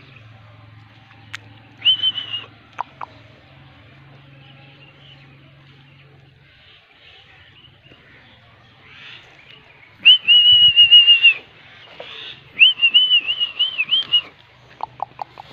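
High, shrill whistled notes: a short one about two seconds in, a long steady one around ten seconds in, then a quick run of rising-and-falling notes. A faint low hum lies under the start, with a few light clicks.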